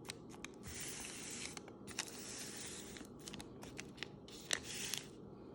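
Paper hot dog wrapper crinkling and rustling in hand, in three spells of about a second each, with small clicks and crackles between them.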